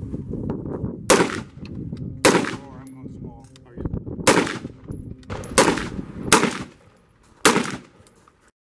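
AR-15-style carbine fired in deliberate single shots: six sharp reports spaced about one to two seconds apart.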